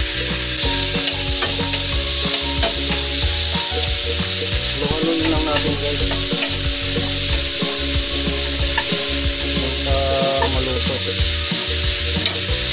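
Sliced onions, carrots and bell pepper sizzling over medium heat in a non-stick wok while a wooden spatula stirs and tosses them, with frequent quick scrapes and taps of the spatula against the pan.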